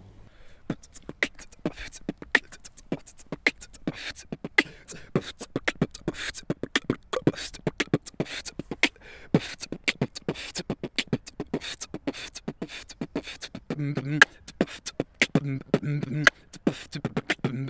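Human beatboxing: a fast rhythm of mouth-made kick, snare and hi-hat sounds, with low hummed bass notes joining in near the end.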